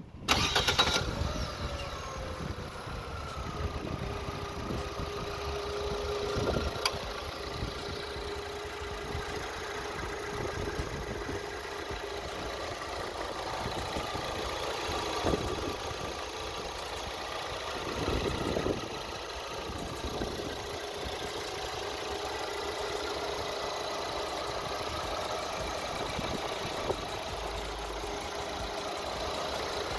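Fiat 500's 1242 cc Fire four-cylinder petrol engine heard close up under the open bonnet. About half a second in its sound rises suddenly, then its pitch falls over the next few seconds and it settles to a steady idle.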